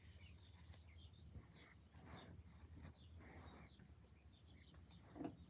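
Near silence: room tone with a steady low hum and faint scattered rustles.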